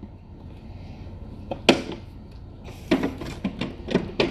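A few scattered knocks and clicks of things being handled, one about a second and a half in and a cluster near the end, over a low steady hum.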